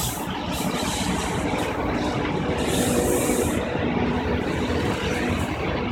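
John Deere 5050 D tractor's three-cylinder diesel engine idling steadily, with a brief hiss about three seconds in.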